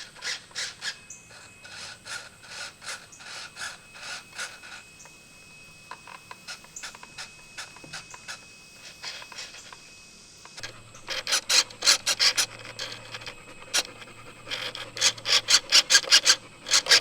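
Control-surface servos of a Mini Apprentice S RC plane whirring in many short, rapid bursts as the controls are worked. They get denser and louder from about ten seconds in.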